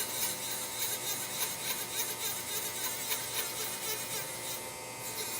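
Axis servo drive and ball screw of an Amada Wasino Meister Pro CNC grinder whirring steadily as the up-and-down axis is jogged by hand.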